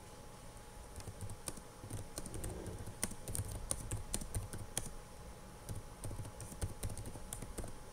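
Typing on a computer keyboard, faint and irregular, as a message is typed into a video-call chat.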